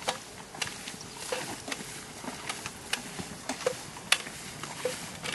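Several people walking in single file through tall dry grass: a steady rustle of grass against legs and boots, with irregular sharp clicks and short metallic clinks from the gear they carry.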